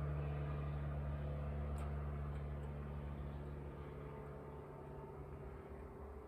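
A steady low machine hum that slowly fades away over several seconds.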